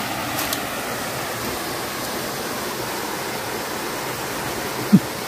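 Shallow, muddy river water rushing steadily over rocks and a small cascade. A brief, short pitched sound stands out near the end.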